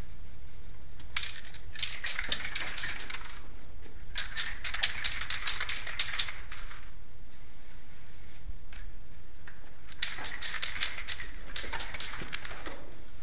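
Aerosol spray paint can in use: spells of rapid rattling clicks from the mixing ball along with spray hiss, four spells of one to three seconds each.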